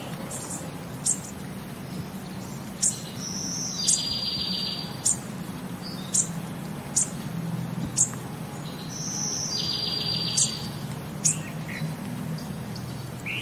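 Birds chirping: short, sharp high chirps about once a second, with a longer buzzy trilled call twice, over a steady low hum.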